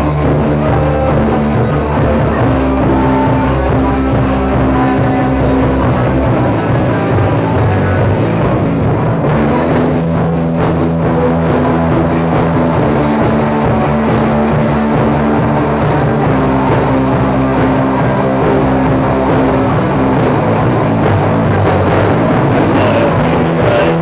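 Rock music with drums and electric guitar.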